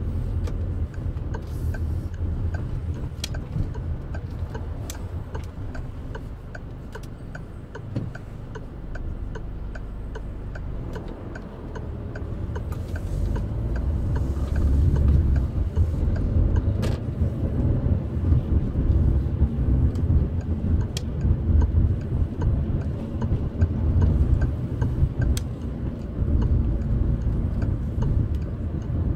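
A car's interior noise while driving: a low engine and road rumble that grows louder about halfway through as the car picks up speed. Over the first part there is a regular, faint clicking of the turn indicator.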